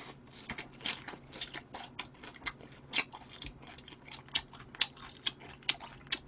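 A person chewing a mouthful of smoked duck breast with chives, lips smacking in irregular clicks a few times a second.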